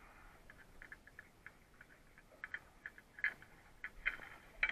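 Light, irregular clicking and ticking as a new spin-on oil filter is threaded onto the engine by hand, with a few louder clicks in the second half.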